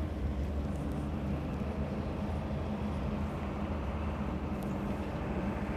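Steady low engine and road noise of the vehicle being driven, an even hum with no sudden events.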